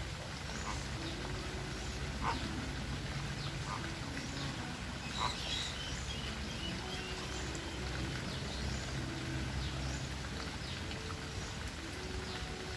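A flock of flamingos calling with short, low honks over a steady low hum, with scattered high chirps and a couple of brief ticks.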